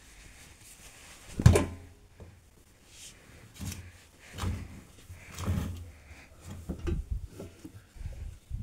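Laundry being put into the open drum of an Arcelik 7103 Y front-loading washing machine: a sharp thump about one and a half seconds in, then several softer thuds and rustles of fabric.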